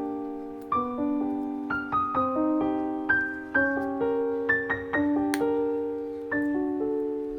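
Background music: a solo piano playing a gentle melody of overlapping notes that each ring and fade.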